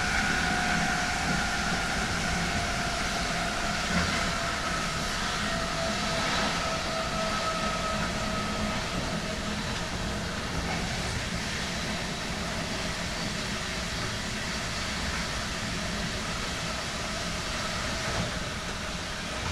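Traction inverter whine from a DB Class 101 electric locomotive's Adtranz/ABB MICAS-S GTO inverter, heard from the adjacent passenger coach over the train's steady running noise. Two whining tones slowly fall in pitch over the first nine seconds or so, then fade into the running noise.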